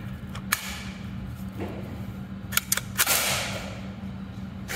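Gunshots ringing through an indoor shooting range: a sharp crack soon after the start and a louder one about three seconds in, with a long echo. Just before the louder shot come two quick metallic clicks from handling the .22 HK416 rifle.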